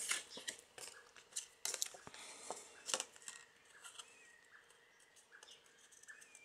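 Rustling and light clicks of cardstock pieces being sorted, picked up and handled by hand, busier in the first three seconds and fainter after.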